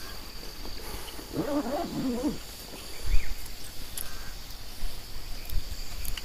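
A wavering animal call lasting about a second, about a second and a half in, over a steady high-pitched tone, with a couple of low thumps later on.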